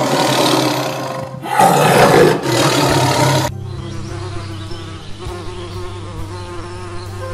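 A tiger roaring twice, the second roar longer and louder, then from about three and a half seconds in a carpenter bee buzzing steadily, quieter.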